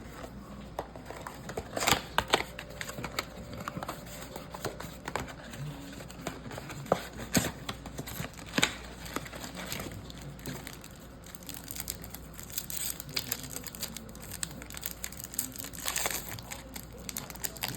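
Trading-card packs being torn open, the wrappers crinkling and crackling, with several sharp rips.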